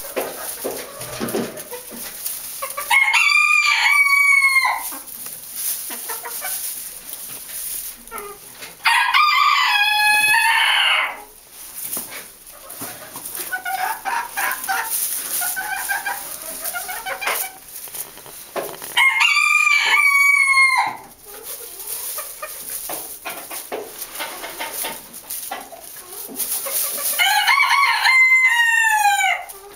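Karzełek polski (Polish bantam) chickens: a rooster's crow four times, each about two seconds long, with softer hen clucking between the crows.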